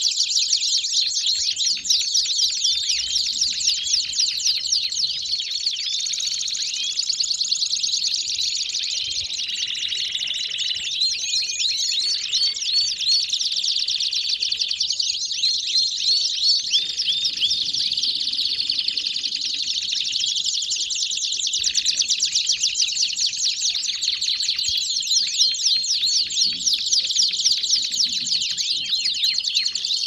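Domestic canaries singing together in a dense, unbroken chorus of fast, high trills and rolling phrases.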